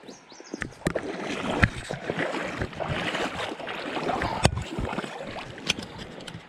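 Water splashing and sloshing, broken by several sharp knocks.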